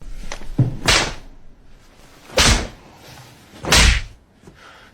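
Three heavy blows landing about a second and a half apart, each a deep thud with a sharp swish, with a couple of lighter knocks before the first: film punch sound effects.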